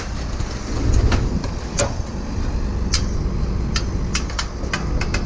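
Scrap metal pieces being handled, with several sharp clinks and knocks, over a steady low rumble.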